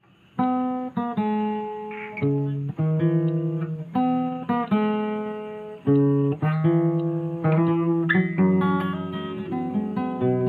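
Solo acoustic guitar picking a melody, single notes and chords that start sharply and ring out as they fade. The playing begins about half a second in.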